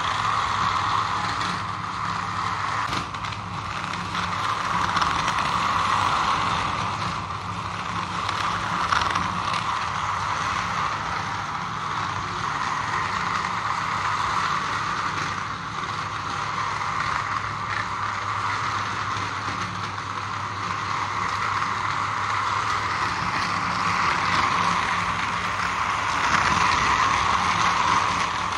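Battery-powered toy MRT train running round a plastic track, its small electric motor and gearbox whirring steadily. The whir swells and eases as the train circles and is loudest near the end, when it passes close by.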